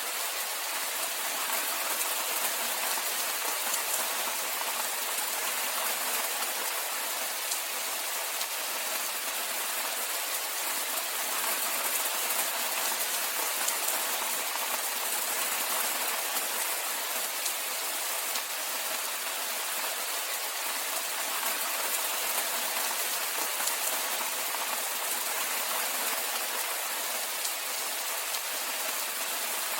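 Steady rainfall: an even, unbroken hiss of many raindrops.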